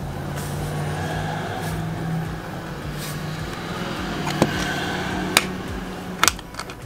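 A steady low hum, with three sharp clicks in the second half as the aluminium SSD enclosure and its latch mechanism are handled.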